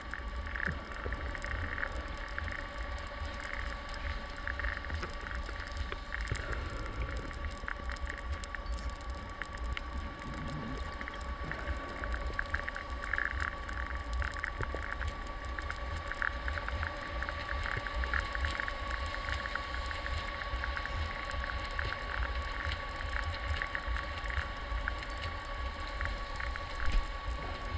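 Underwater ambience picked up through a diving camera's housing: a steady low rumble with two even hum tones, and scattered clicks and crackles throughout. There is one louder knock near the end.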